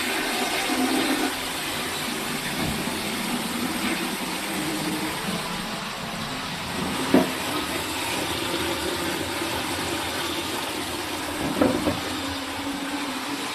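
Newly installed toilet flushing: a steady rush of water through the bowl as the cistern refills, with a couple of short knocks partway through.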